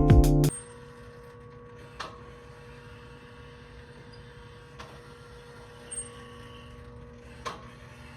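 Background music cuts off about half a second in. It leaves a faint steady hum of room or equipment noise, with four soft clicks or taps spread through the rest.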